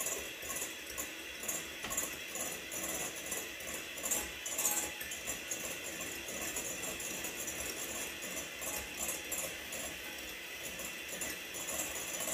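Egg whites being beaten to meringue in a bowl: a steady, fast rattling clatter of metal against the bowl.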